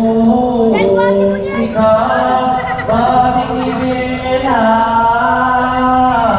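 Chanted singing without instruments: voices holding long notes that step up and down in pitch in a slow, repeating line.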